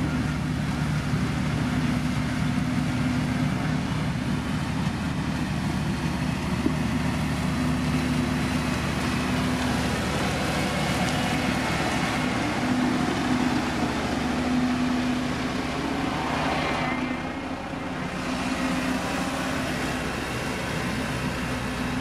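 Diesel engine of a SANY STG190C-8S motor grader running steadily under load, with gravel grinding and scraping under its blade. A Sakai road roller's engine is also running.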